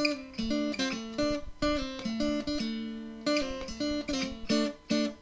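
Intro music: an acoustic guitar playing a plucked melody with chords.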